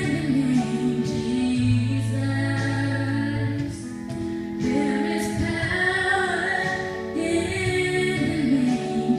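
Live worship music: a woman singing lead over a small band, with long held bass notes underneath.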